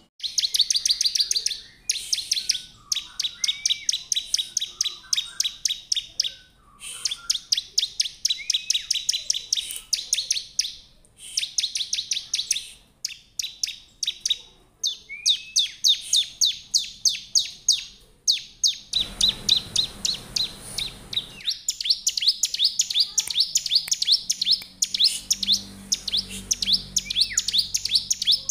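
Ciblek (prinia) singing in its cage: rapid strings of sharp, high, repeated notes in bouts of one to three seconds with short pauses between. A brief rustling noise comes about 19 seconds in.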